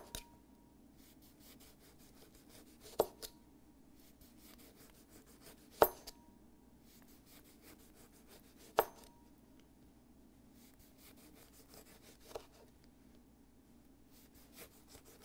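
Serrated knife sawing through a lemon into thin slices, a faint rasp, with a sharp tap of the blade on the cutting board as each slice comes free: five taps about three seconds apart.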